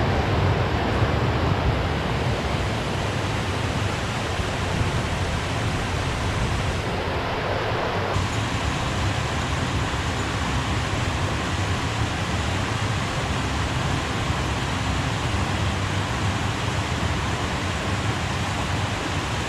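Steady rushing of a mountain stream running high after rain: an even wash of water noise with no breaks.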